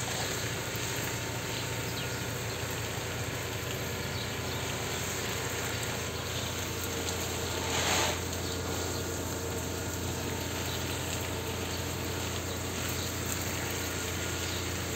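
Garden hose spray of water falling onto potted plants and soil, a steady hiss, briefly louder about eight seconds in. The plants are being washed of dust after a dust storm.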